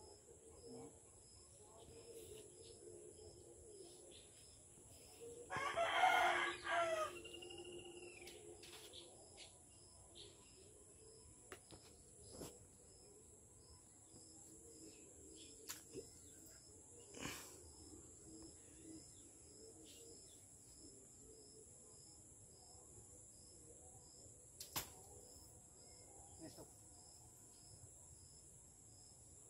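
A rooster crows once, loudly, for about a second and a half, about six seconds in. The rest is a faint background with a steady high hiss and a few short clicks.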